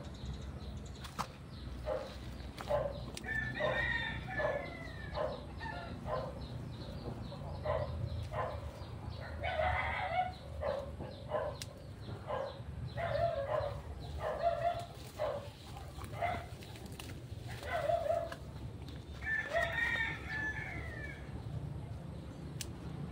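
Roosters crowing three times, with short clucking calls in between.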